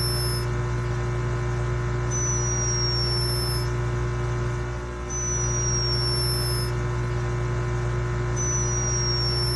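Sleeping hummingbird snoring: a thin, high-pitched whistle that slides slightly downward, each about a second and a half long, repeating every two to three seconds. A steady low hum runs underneath.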